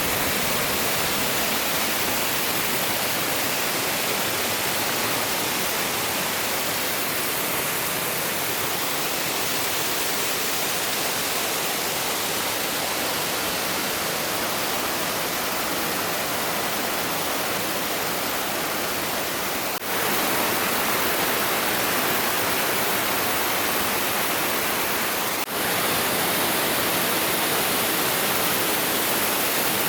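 Steady rush of a mountain stream's water pouring over rocks, dropping out for an instant twice, about twenty and twenty-five seconds in.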